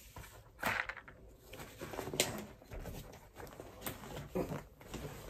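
Quiet, scattered taps and rustles of hands handling paper stickers and a cardboard tube, with a few sharp clicks.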